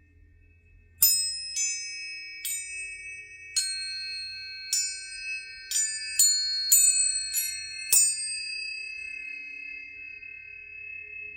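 Planetary tuning forks struck about ten times in a loose, uneven rhythm, each strike a bright metallic ping. Several pure tones ring on together and slowly fade after the last strike.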